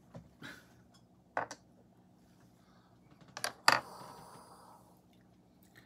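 Teaware clinking: a few sharp, light clicks of cups and teapot being handled and set down, the loudest just under four seconds in, followed by a short soft hiss.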